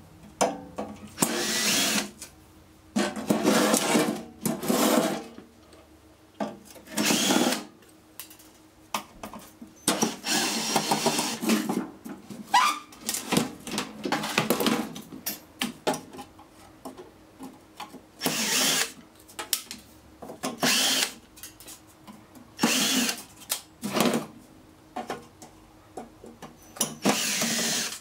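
Cordless drill-driver backing screws out of a sheet-metal instrument case. It runs in about ten short bursts of half a second to two seconds, with pauses between them as the bit moves from screw to screw.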